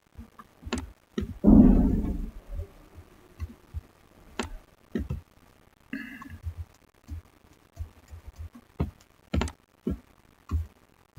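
Irregular clicks and soft knocks of a computer mouse being handled and scrolled on a desk, close to the microphone, with one louder, low thump about a second and a half in.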